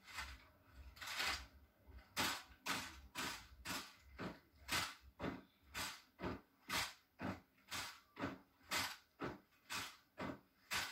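Boots of a column of Norwegian Royal Guard soldiers striking cobblestones in step, a steady marching beat of about two sharp steps a second.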